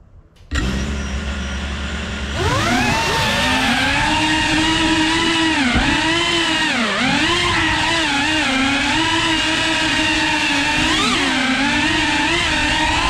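FPV quadcopter's electric motors start up suddenly about half a second in and spin at idle. About two seconds in they throttle up into a whine that keeps rising and falling in pitch with the throttle as the drone flies.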